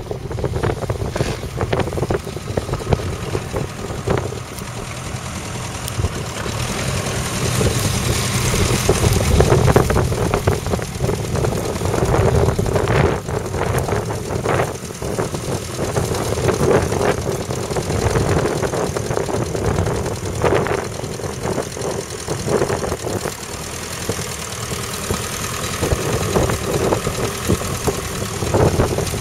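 1955 Ferguson TEF20's four-cylinder diesel engine running steadily under load as the tractor pulls a mounted plough through the soil.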